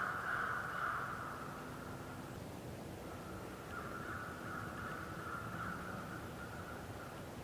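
Crows cawing in the distance, the calls overlapping into a continuous rough chorus that drops off briefly a few seconds in and then resumes.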